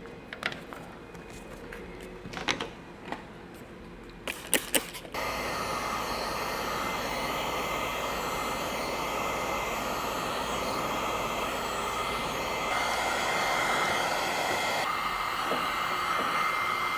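A few light taps and clicks, then about five seconds in a heat gun switches on and runs steadily: a blowing hiss with a faint high whine, warming the paint protection film.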